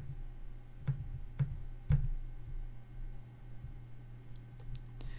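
A computer mouse clicking about four times in the first two seconds, the last one loudest, then a few faint clicks near the end, over a low steady hum.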